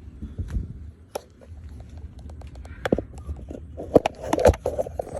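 Irregular clicks and knocks of a Mithril wrist wrench being handled and hooked up by its center attachment point, the two loudest knocks about four seconds in, half a second apart, with rustling between them.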